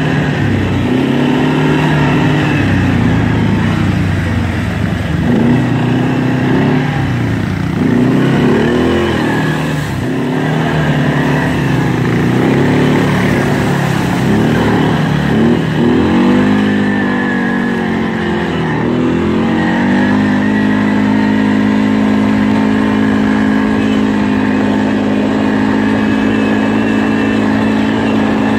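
Arctic Cat 550 ATV's single-cylinder four-stroke engine running under load over rough field ground. Its pitch rises and falls with the throttle through the first two-thirds, then holds at a steady high speed.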